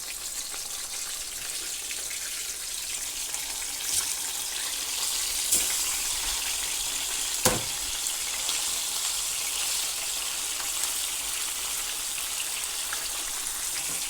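Chicken wings deep-frying in hot oil during their second fry, a steady sizzle. Three sharp clicks or knocks cut through it, the loudest about halfway.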